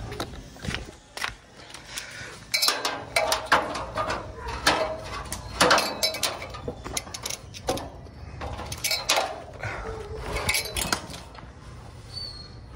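Irregular clattering, clinks and knocks of hard objects being handled, with quieter handling noise between them.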